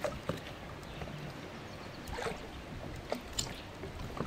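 Water sloshing and gurgling around a boat, with a few light knocks.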